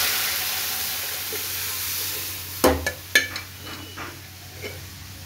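Boiled dal poured into a hot tadka of oil, garlic, mustard seeds, cumin and curry leaves in an aluminium pot, sizzling loudly and dying down over the first two seconds or so. Two sharp knocks come about two and a half and three seconds in, then a quieter sizzle.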